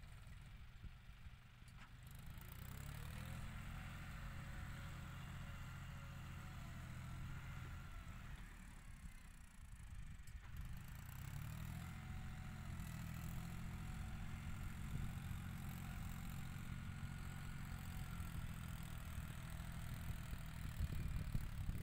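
John Deere 5045 tractor's three-cylinder diesel engine working under load while pushing soil with a blade to build a paddy levee. The engine note eases off and then picks up again, once about two to three seconds in and again around eleven seconds.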